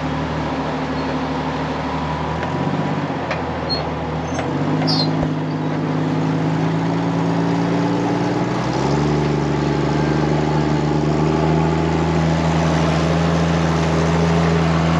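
Off-road buggy engine running under load as it pulls a disabled pickup up a rock ledge on a tow line. Its pitch steps up about four and a half seconds in and again about nine seconds in, then holds steady.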